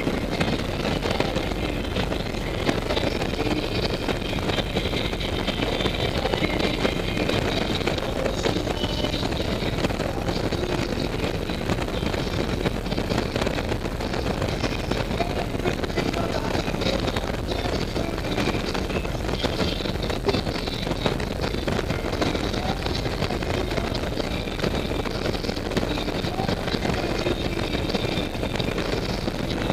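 Harley-Davidson Ultra Classic's Twin Cam 96 V-twin engine running steadily at road speed, heard from on the moving motorcycle.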